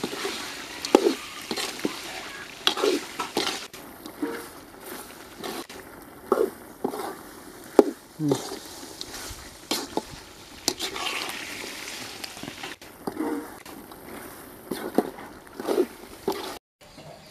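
Chicken frying in masala in a large metal pot, stirred with a ladle: a steady sizzle with repeated scrapes of the ladle against the pot, about one every second or two. The sound cuts out briefly near the end.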